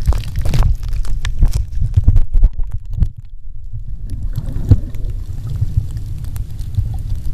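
Water sloshing and bubbling around a camera held just below the surface: a muffled low rumble with many knocks and clicks. The higher hiss drops away for a moment about three seconds in.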